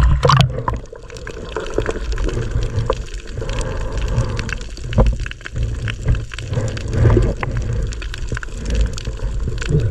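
Sea water sloshing and gurgling around an action camera dipped at and below the surface, heard muffled through the camera's case as a steady low rumble with scattered small clicks and ticks.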